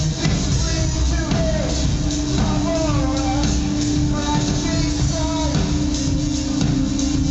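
A live rock band playing: a man singing over electric guitar and keyboard, with a held low note coming in about two seconds in.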